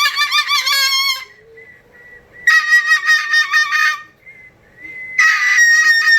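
Cockatoo whistling loudly in three bursts: a wavering trill about a second long, then two steadier whistles a second or so each. This is the whistle it has been taught, which the owner calls the most annoying sound.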